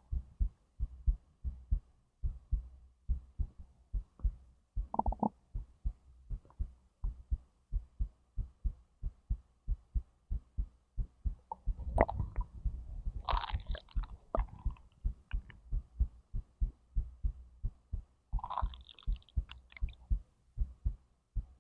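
Human heartbeat heard through the belly: a steady run of low, paired beats. Stomach and intestinal gurgles break in about five seconds in, again in a longer bubbling bout from about twelve to fifteen seconds, and once more near nineteen seconds.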